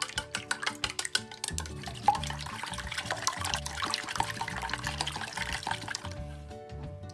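Chopsticks beating two raw eggs in a stainless steel bowl: quick clicks against the metal at first, then from about a second and a half in a faster, continuous wet sloshing that breaks up the whites, easing back to single clicks near the end. Background music plays underneath.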